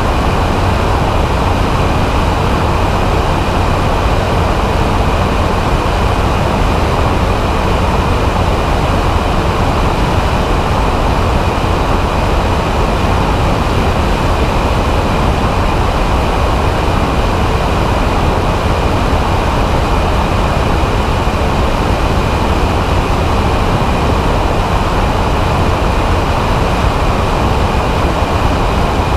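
Microlight trike in steady cruise: its engine and pusher propeller running at a constant pitch, mixed with heavy wind rush on the wing-mounted camera's microphone.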